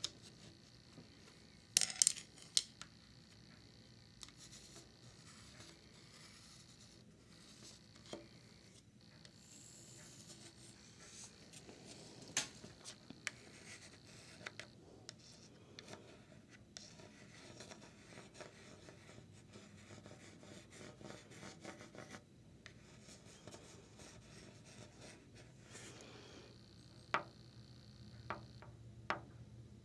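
Light scratching and scraping along a window frame's track and sill, first with a paintbrush and then with a thin brass rod. A few sharp taps come about two seconds in, and several more near the end.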